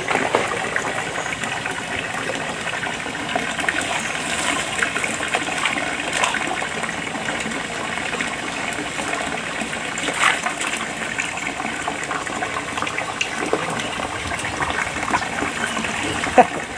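Water pouring steadily from a pipe into a shallow pool, a continuous gushing splash. A couple of brief sharp splashes or knocks stand out about two-thirds of the way through and near the end.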